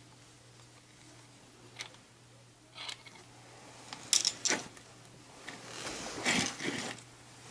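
Metal hand tools and wiring being handled at a burner's steel junction box. There are a few light clicks, a loud cluster of metallic clinks about four seconds in, then rustling and scraping near the end.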